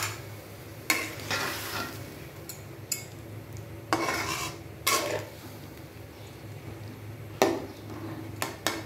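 A metal ladle stirs sliced banana-stem pieces in simmering broth in a metal pot. It gives a few sharp clinks against the pot and short wet scrapes between them.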